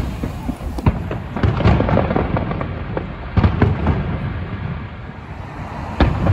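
Aerial fireworks shells bursting: a run of booms with rumbling echoes, clustered in quick volleys, and a sharp bang near the end.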